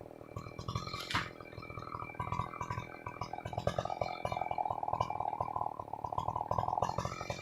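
New West PRO 888 two-stroke chainsaw idling steadily, its pitch lifting slightly about halfway through. A sharp knock about a second in.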